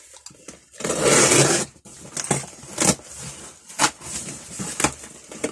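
Packaging being unwrapped: one loud rustle or tear lasting about a second, then several sharp clicks and knocks as the wrapped tool is handled.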